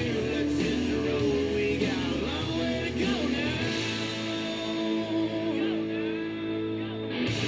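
Background music: a rock track led by guitar. It turns muffled for about a second and a half near the end, then opens up again.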